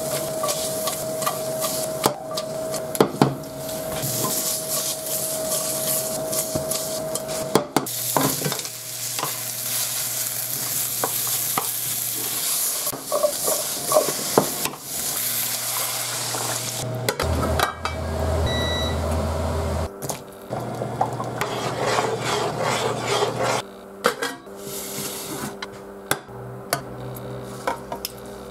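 Sliced pork, onion and potato sizzling as they fry in a nonstick frying pan, stirred and scraped with a wooden spatula that now and then knocks against the pan. A short electronic beep sounds about two-thirds of the way through.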